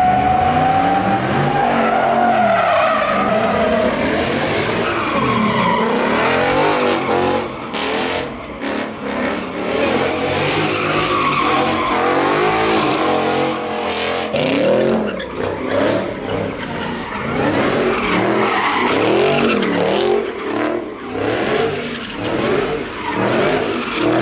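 A car spinning donuts: its engine revs up and down again and again while the tyres squeal and skid on the pavement.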